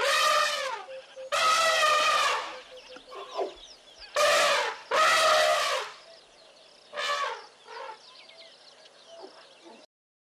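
Chickens squawking: about five loud calls, each under a second, with small birds chirping faintly between them.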